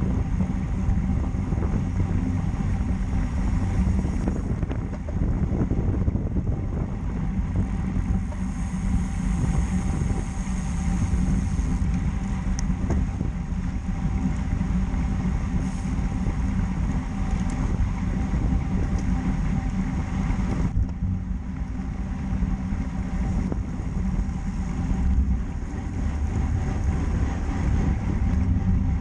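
Wind noise on the microphone of a camera riding along on a road bicycle: a steady, heavy rumble.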